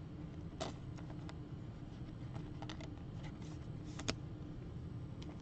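Soft clicks and rustles of trading cards being handled, with a slick card slid into a plastic sleeve; the sharpest click comes about four seconds in. A steady low hum runs underneath.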